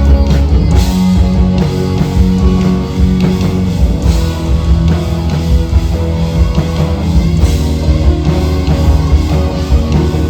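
Loud rock music from a band: guitar, steady low bass notes and a drum kit.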